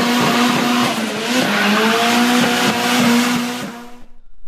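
A car with its tyres squealing over the engine noise, in the manner of a drifting or racing car, dying away near the end.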